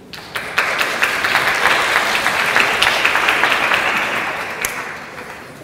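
Audience applauding: a round of many hands clapping that starts suddenly, holds, and fades away near the end.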